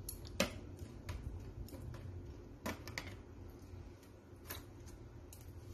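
Metal kitchen tongs clicking and tapping against a plastic tray while turning a piece of raw marinated chicken: a few scattered sharp clicks over a low background hum.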